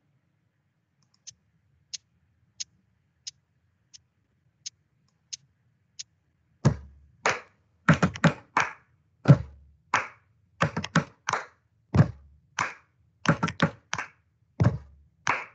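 Eight soft count-in clicks, then body percussion in a repeating stomp, clap, patsch pattern: a low foot stomp, a hand clap, then three quick slaps on the thighs. The pattern starts about seven seconds in and repeats every couple of seconds.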